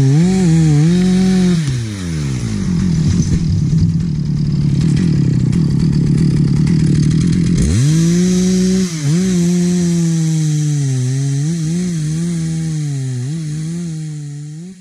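Petrol chainsaw engine running at high revs with quick throttle dips. About two seconds in it drops to a lower, rougher tone for several seconds, then revs back up about halfway through and keeps running unevenly.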